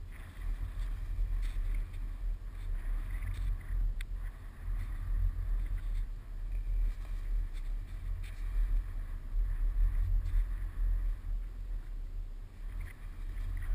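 Wind buffeting the microphone: a low, gusting rumble that swells and eases throughout.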